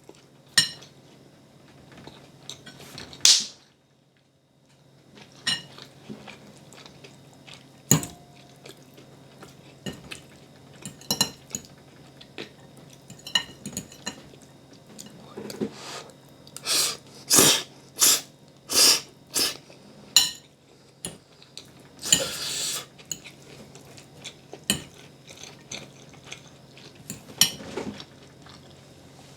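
Kitchenware and cutlery clinking: a string of separate sharp clicks and knocks of utensils against dishes, thickest in a quick run about two-thirds of the way through.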